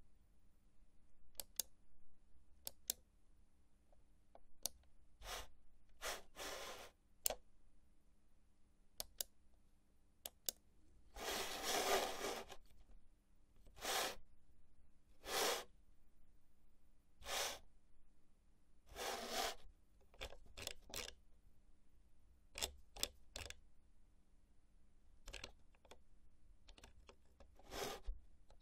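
Computer mouse clicking, with single clicks and quick double clicks spread irregularly. Between them come longer scraping strokes, a little over a second at most, typical of the mouse being slid across the desk.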